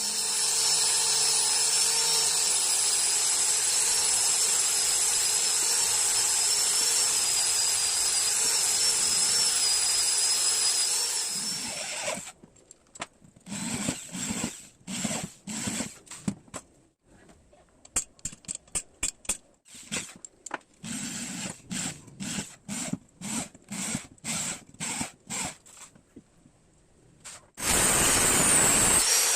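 A small high-speed power tool working wood, running with a steady high whine for about twelve seconds, then cutting in short stop-start bursts, and running steadily again near the end.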